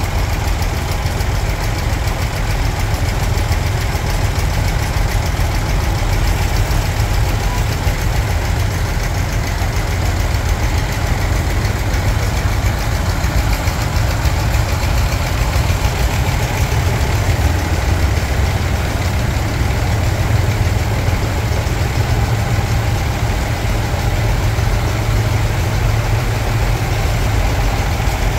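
An engine idling steadily, with fast, even firing pulses.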